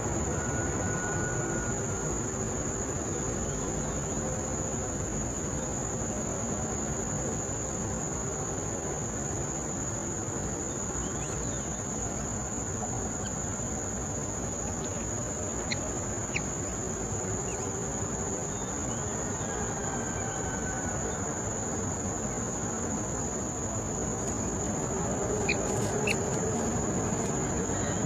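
Steady high-pitched drone of insects, unbroken throughout, over a low outdoor hiss. A few light clicks come about two-thirds of the way in and again near the end.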